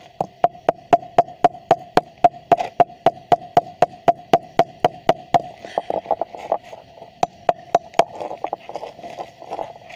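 Claw hammer striking a small transformer's steel lamination core in quick, even blows, about three a second, knocking the laminations loose to free the copper winding. About five seconds in, the blows turn lighter and irregular, and they stop after about eight seconds.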